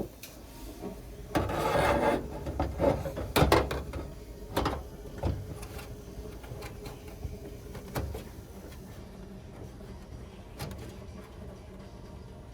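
Hand tools working on metal exhaust parts: a rasping scrape about a second and a half in, then a run of sharp clanks and knocks, with scattered small clicks after.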